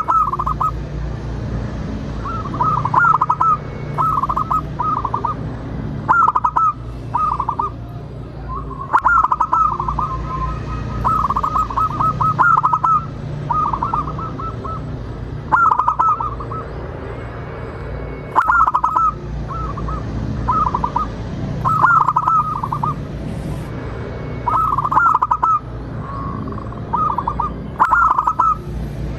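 Zebra dove cooing: repeated phrases of quick, stuttering notes, each under a second long, coming every one to three seconds over a steady low hum.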